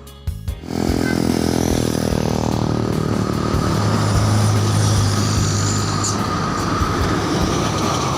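A bus passing close by. Its engine noise rises sharply about a second in and stays loud, heaviest in the middle.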